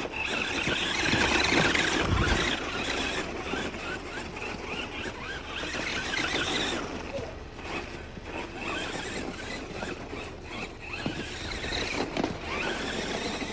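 Redcat Volcano RC monster truck's motor and drivetrain whining, the pitch rising and falling with the throttle as its tyres churn through snow.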